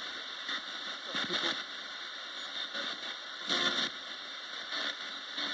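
Roberts radio hissing with steady static, broken by short bursts of sound about a second in and again about three and a half seconds in.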